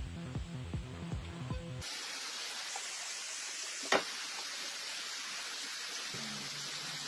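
Electronic music with a beat that cuts off about two seconds in, giving way to a steady hiss with a single sharp click partway through.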